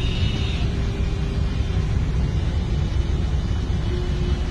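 Steady low rumble of engines from the jammed traffic and the diesel locomotive creeping through the level crossing. A high horn note dies away in the first half second.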